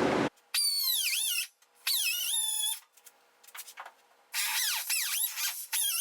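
A small high-speed power tool cutting into the rusted sheet metal of a 1963 Chevy C10 cab roof above the windshield. Its high whine dips in pitch as it bites into the metal and climbs back, in three runs: two short ones, then a longer one starting a little past the middle.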